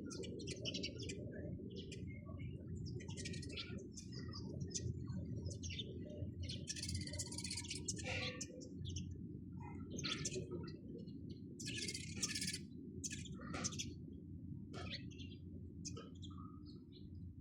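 Sparrows chirping in many short, irregular calls, several birds overlapping, over a steady low background rumble.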